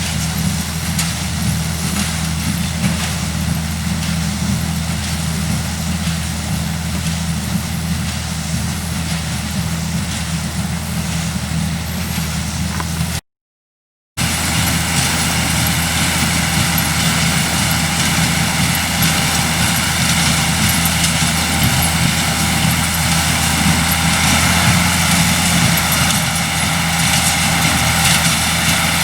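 Farm tractor engine running at a steady speed. The sound drops out completely for about a second midway, then the same steady running resumes a little louder.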